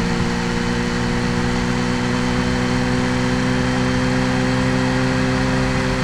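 Kawasaki Z H2's supercharged inline-four engine running at a steady engine speed, its note holding nearly constant, over an even rush of noise.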